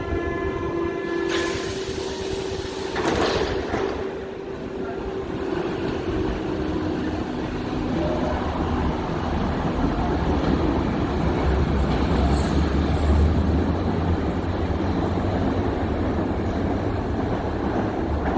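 Berlin U-Bahn large-profile train departing: a door warning tone ends about a second in, followed by a loud hiss as the doors close and the brakes release. The train then pulls away, its motors and wheels rumbling, loudest about two thirds of the way through, and keeps running as it heads into the tunnel.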